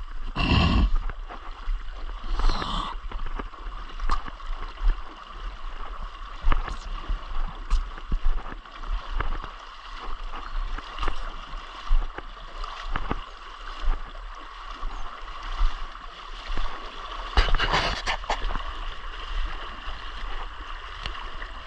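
Shallow river water rushing and gurgling around a wooden longboat's hull and the legs of people wading as they push it upstream, with a few louder splashes: about half a second in, near 2.5 s, and around 18 s.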